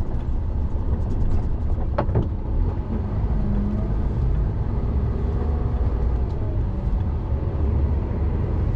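Diesel engine and road noise of an articulated lorry moving slowly, heard as a steady low rumble from inside the cab, with a single sharp click about two seconds in.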